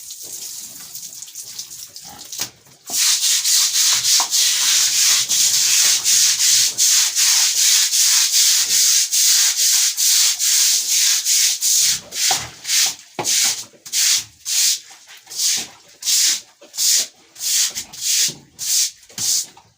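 Stiff brush scrubbing a wet floor hard: a continuous rasping scrub from about three seconds in that breaks into separate strokes, about two a second, in the second half.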